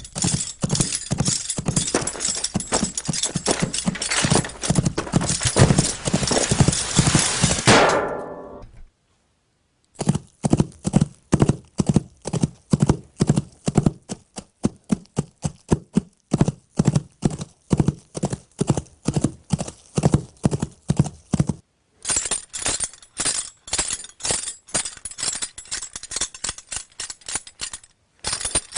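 Clip-clop of hoofbeats, a rhythmic knocking of about three to four strokes a second. A dense stretch fades out and stops about eight seconds in, the beat resumes about two seconds later, and after a short break near the end it returns with a brighter clatter.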